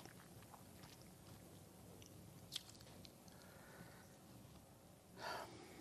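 Near silence: faint room tone, with one small click about two and a half seconds in and a short intake of breath near the end.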